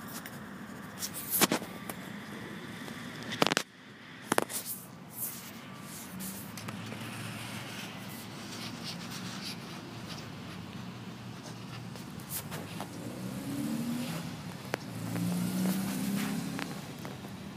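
Steady outdoor background noise like distant road traffic, with several sharp knocks in the first few seconds and a louder low rumble a few seconds before the end.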